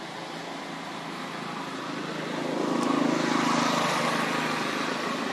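A passing motor vehicle: a steady engine hum and noise that swells to its loudest about three seconds in, then eases off.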